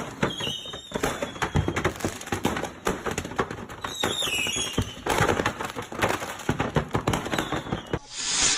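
Fireworks going off in a rapid, dense string of bangs and crackles, with two short whistling tones mixed in. A loud hiss comes just before the end.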